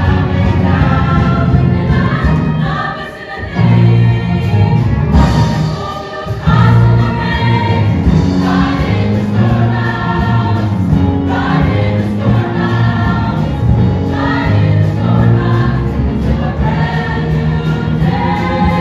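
Mixed show choir singing with musical accompaniment, heard from the audience; the sound dips briefly about three seconds in and again near six seconds.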